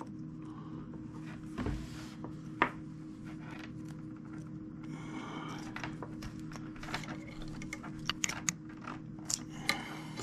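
Strands of stranded steel aircraft control cable being worked by hand in a splice: light scraping, rubbing and clicking of wire on wire, more frequent in the last few seconds, over a steady low hum.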